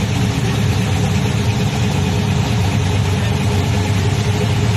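Old Chevrolet Caprice donk's V8 engine idling steadily.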